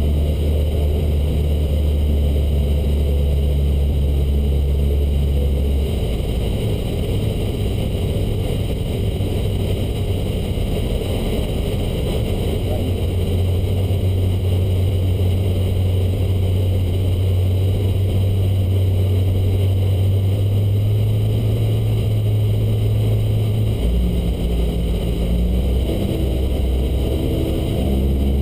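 Cessna 152's four-cylinder Lycoming O-235 engine and propeller running steadily in flight, heard from inside the cockpit. The low hum shifts pitch a few times: about six seconds in, and twice more in the last third.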